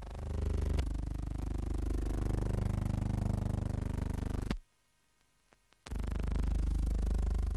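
Old newsreel film soundtrack noise: a steady low hum and hiss with a fine regular ticking, and sharp clicks about a second in and just past the middle. Right after the second click the track drops out to near silence for about a second, then the hum comes back.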